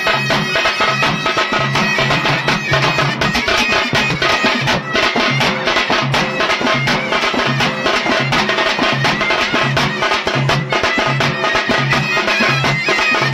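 Loud traditional Indian folk music with a wind instrument over a steady, evenly repeating drum beat.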